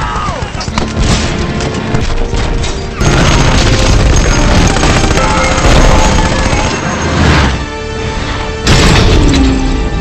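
Film battle sound mix: explosions and crashing debris over orchestral score, with a loud rise about three seconds in and a heavy blast near the end.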